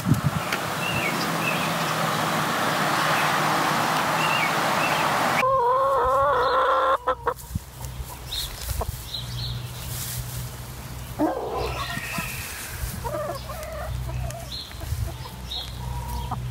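Domestic hens clucking, with one long, wavering call about six seconds in and scattered short clucks and small clicks after it. Before that, a steady rushing noise for about five seconds that stops suddenly.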